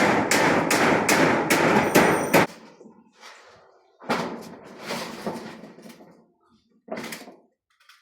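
A rapid series of sharp knocks or bangs, about three a second, stopping about two and a half seconds in, followed by quieter, irregular knocking and rustling.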